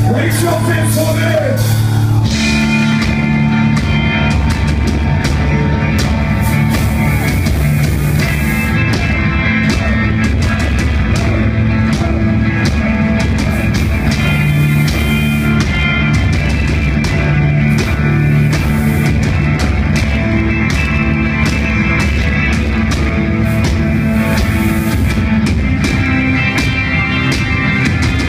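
Live metal band playing loud: distorted electric guitars and a drum kit with busy cymbal and drum hits, the full band coming in heavily about two seconds in.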